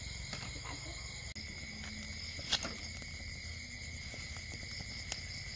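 Night insects keeping up a steady high-pitched chirring in several tones over a low hum. A sharp click about halfway through, and a smaller one near the end.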